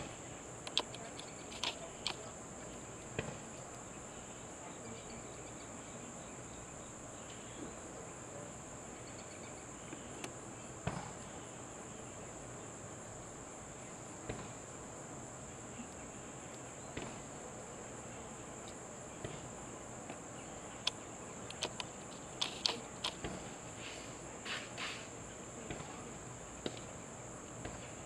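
Steady, high-pitched drone of an insect chorus, with scattered faint clicks and taps, most of them in a cluster near the end.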